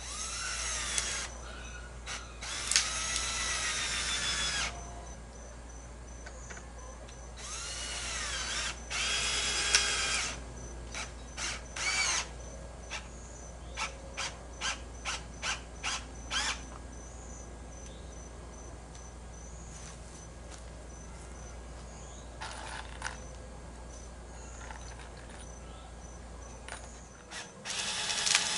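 Hand-held power drill running in bursts on the wooden boards: two long runs a few seconds each with the motor pitch rising and falling, then a quick string of about a dozen short trigger pulses, with more runs near the end.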